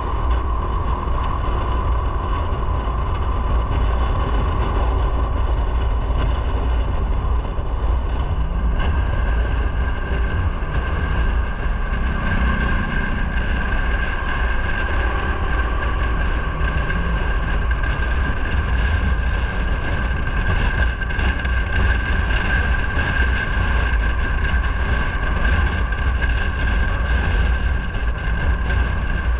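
Motorcycle riding at a steady speed, its engine running under heavy wind noise on the microphone.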